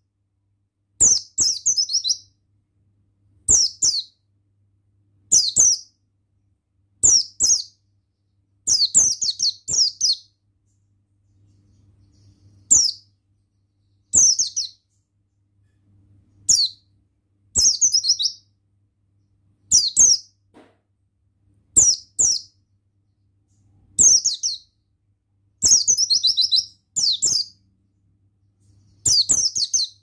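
White-eye (pleci buxtoni) in full song (gacor): short, high, twittering phrases that fall in pitch, repeated every second or two. A faint low hum runs underneath.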